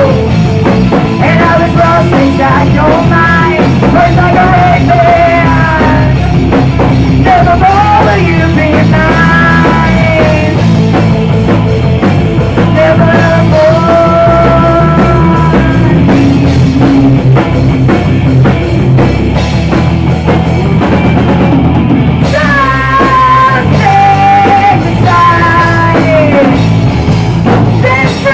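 Rock band playing live with drums and amplified instruments under a singer's held, sliding vocal lines, loud and continuous.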